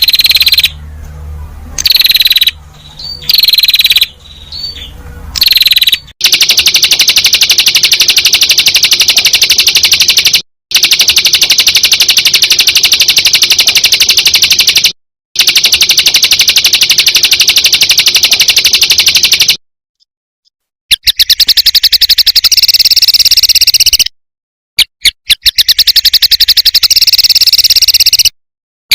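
Recorded songbird song: a run of very fast, machine-gun-like high trills, the 'tembakan' burst song played to train pet songbirds. The first few seconds hold shorter phrases with a low hum under them; after that come long trills of about four seconds each, separated by abrupt short silences.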